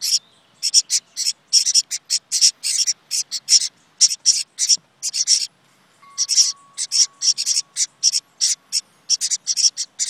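A brood of nestlings in a birdhouse begging for food: rapid, high chirps, several a second, with a short pause about five and a half seconds in.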